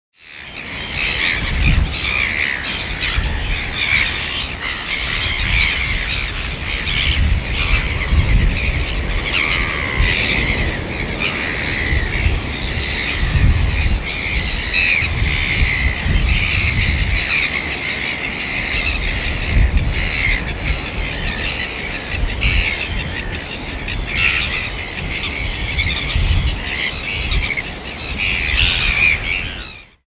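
A colony of red-billed gulls calling, with many harsh, squawking calls overlapping without a break. A low, uneven rumble runs underneath.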